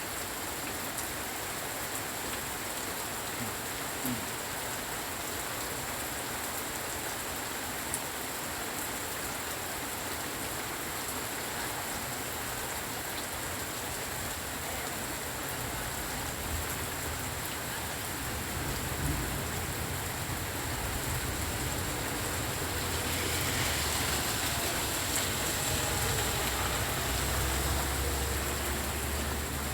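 Steady rain falling, with a few sharper drops. Past the halfway point a low rumble of distant thunder builds and rolls on, louder near the end.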